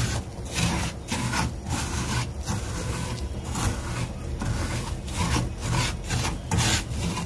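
Wooden spoon scraping and stirring dry granulated sugar in a stainless-steel pan, a gritty rasp about twice a second, as the sugar begins to melt into a light caramel. A low steady hum runs underneath.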